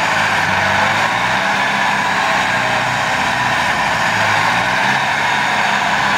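Farm tractor's diesel engine running steadily under load while it tows a loaded trolley over a soil heap.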